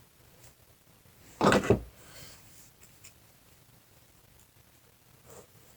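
A brief clatter of small parts and tools being handled on a workbench, about a second and a half in, followed by faint clicks and rubbing while someone searches among carburetor parts.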